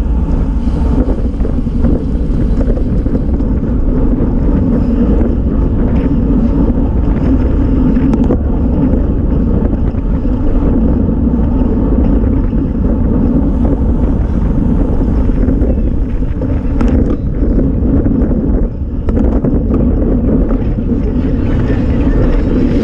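Steady wind rush buffeting a bicycle-mounted action camera's microphone while riding at race speed of about 26 mph, mixed with road and tyre noise. The rush eases briefly about 19 seconds in.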